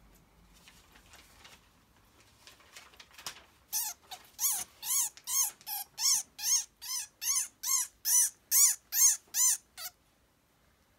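Dog whining: a run of about fifteen short, high calls, each rising and falling in pitch, at two or three a second, starting about four seconds in and stopping near the end.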